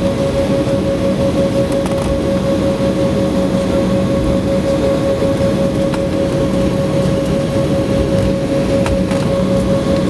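Cabin noise inside an Embraer E190 airliner taxiing: the GE CF34 turbofan engines at low taxi power make a steady rumble with a constant mid-pitched whine.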